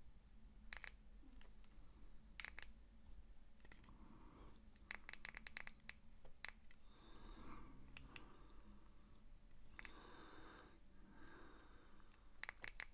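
Faint crinkling of a small clear plastic bag of mounting clips being handled in the fingers, with scattered light clicks.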